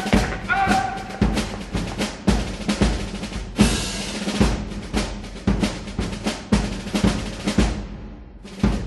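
Background music led by a drum kit: snare and bass drum hits and rolls, with a pitched melody trailing off in the first second.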